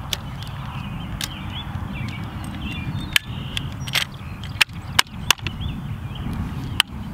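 Metallic clicks and clacks of a Browning 1919A6 belt-fed machine gun being loaded: a belt of .30-06 cartridges is set in the feed tray and the top cover is closed on it, about eight sharp clicks at uneven intervals. Birds chirp in the background.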